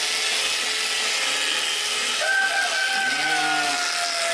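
Corded electric sheep shears running steadily through wool. About halfway through, a sheep bleats once, a slightly falling call lasting about two seconds.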